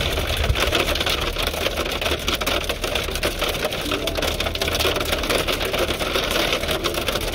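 Hailstones pelting a Jeep Wrangler's hood, roof and windshield in a dense, rapid clatter of ticks, heard from inside the cabin. The Jeep's engine runs low underneath as it crawls along.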